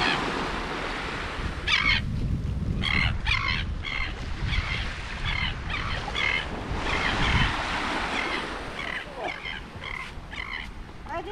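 Gulls calling overhead: many short, harsh calls in quick runs, over wind rumble on the microphone and the wash of small waves.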